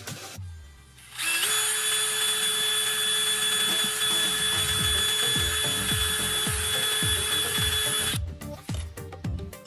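An electric power tool's motor starts about a second in, runs at a steady speed with a steady whine for about seven seconds, then cuts off.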